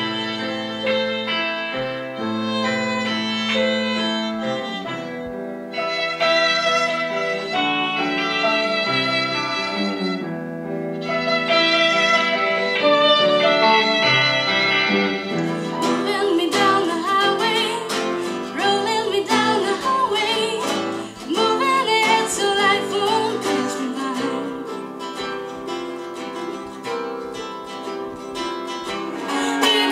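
Live acoustic music: a violin plays a melody over piano and nylon-string classical guitars. About halfway through, the guitar plucking and strumming grows busier and denser.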